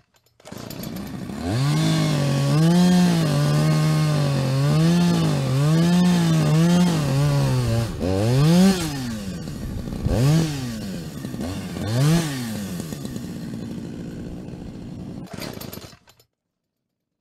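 Chainsaw running at high revs with its pitch wavering up and down, then revved up and let back down three times, about two seconds apart, before cutting off abruptly near the end.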